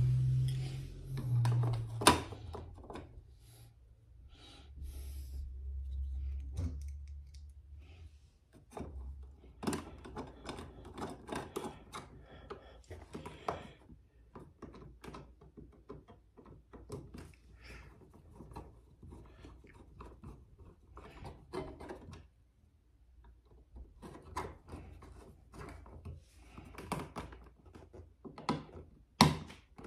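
Plastic switch cover plate being fitted over a toggle switch and screwed on with a screwdriver: scattered small clicks, scrapes and taps, with a sharp click about two seconds in.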